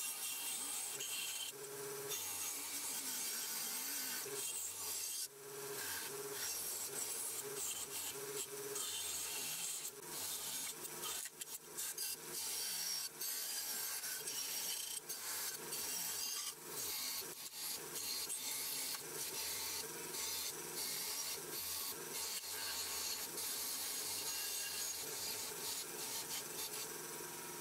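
Bench grinder's wire wheel brush scouring paint and rust off a steel part held against it: a steady, harsh scratching hiss with brief breaks now and then.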